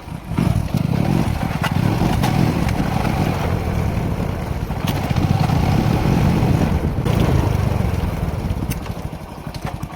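Motorcycle engine running under way, a fast low exhaust pulse that picks up about half a second in and holds steady, with a few sharp clicks over it.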